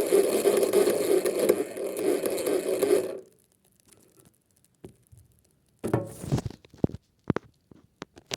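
Small motor of a toy twin-tub washing machine running steadily, then cutting off suddenly about three seconds in. A few scattered clicks and knocks and a short rattle follow.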